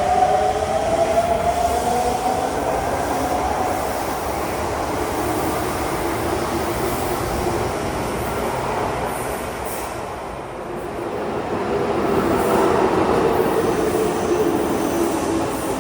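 Electric train running, with tones rising in pitch over the first few seconds and, about halfway through, lower tones falling in pitch.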